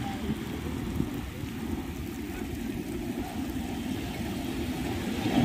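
Steady low rumble of sea wind buffeting the phone's microphone, mixed with the wash of breaking surf.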